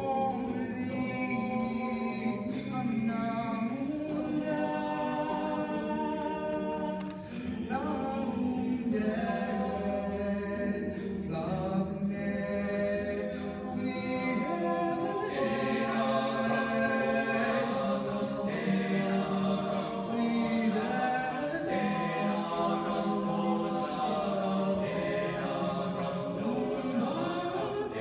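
A cappella choir of mixed voices singing unaccompanied, holding long chords in several parts that change every few seconds.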